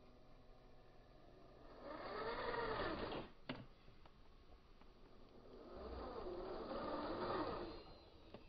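The RC Unimog's twin 370 electric motors whining through its drivetrain, twice rising and falling in pitch as the throttle is applied and eased off, with one sharp click between the two runs.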